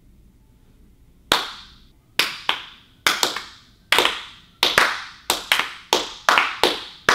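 A slow clap from three people: single hand claps beginning about a second in, widely spaced at first and coming steadily faster.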